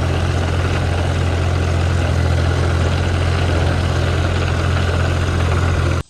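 Loud, steady engine drone with a strong low hum. It cuts off abruptly just before the end.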